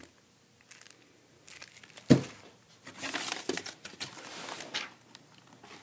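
Clear plastic packaging bag crinkling and rustling as it is handled, with a single sharp knock about two seconds in.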